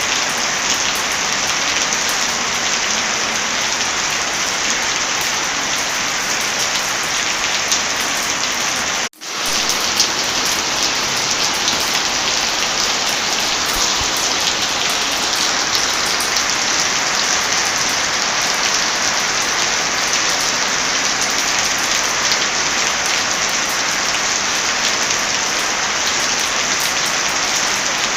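Heavy rain falling in a steady dense hiss with fine pattering drops. About nine seconds in it cuts out for a split second and swells back in.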